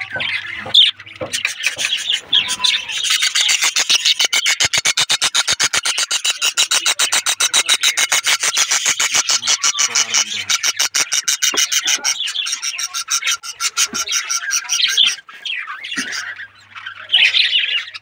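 Budgerigars chattering and squawking, with a long, fast run of evenly repeated calls through the middle.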